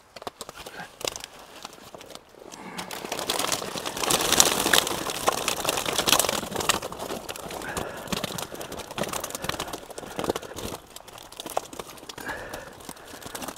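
A keepnet full of live fish being handled and emptied: wet mesh rustling while the fish flap and slap against each other, a dense run of quick slaps and rattles that builds up a couple of seconds in and is loudest about four to five seconds in.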